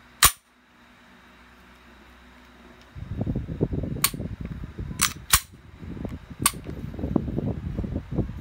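Sharp metallic clicks from a Tisas Zigana PX-9 9mm pistol as it is handled and reassembled: one loud click just after the start, then four more from about four seconds in. From about three seconds in they sit over a low rumbling handling noise.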